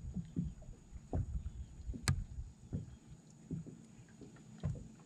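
Small waves lapping and slapping against the hull of a fiberglass bass boat, an irregular run of low splashes about every half second, with one sharp click about two seconds in.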